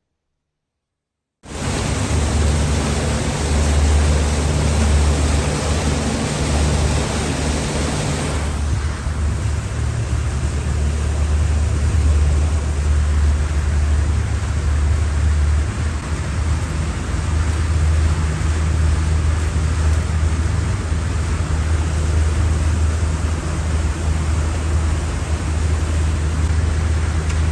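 Tour boat's engine running steadily, a deep even hum under a constant rushing noise; it cuts in suddenly about a second and a half in, and the hiss eases a little about a third of the way through.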